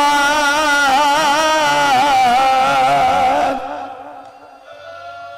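A male voice singing an Urdu marsiya lament, holding a long wavering note over a steady low drone. About three and a half seconds in the voice falls away and a quieter steady held tone remains.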